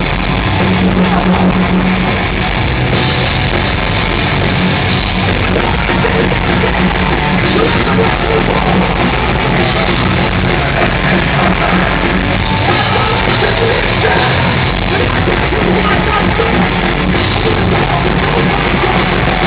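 A heavy rock band playing a song live, loud and continuous, with guitars and drums.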